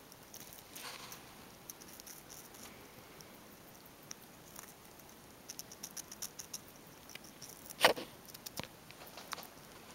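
Long-haired Syrian hamster nibbling a slice of red bell pepper: quick, crisp little crunching clicks in irregular clusters, with one much louder crack late on.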